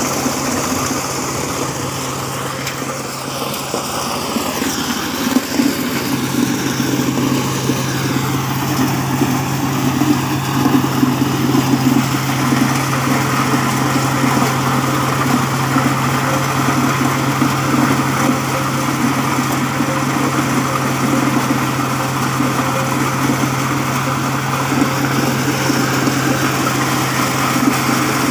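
Engine-driven corn sheller with a double suction blower running steadily under load as ears of corn are fed through it, its engine droning at an even pitch over a constant rushing noise.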